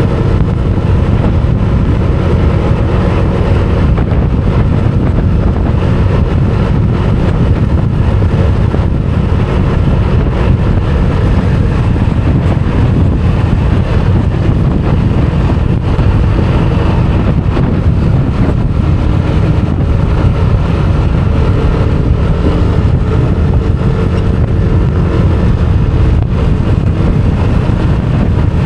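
Wind buffeting the microphone of an action camera on a moving motor scooter, over the scooter's engine running steadily at a cruise of about 55–60 km/h. The sound is a loud, even rumble with a faint steady hum above it.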